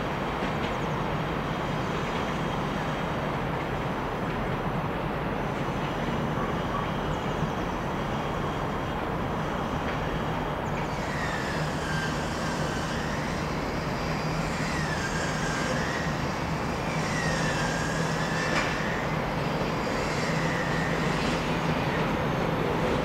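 A passenger train at a station platform, a steady rumble with a low hum. From about halfway a high wavering squeal comes and goes four times, and the sound swells slightly towards the end.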